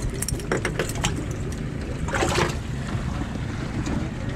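Water splashing in a bass boat's livewell as a bass is grabbed by hand and lifted out, with a few sharp knocks early on and a louder splash about two seconds in. Steady wind rumble sits on the microphone underneath.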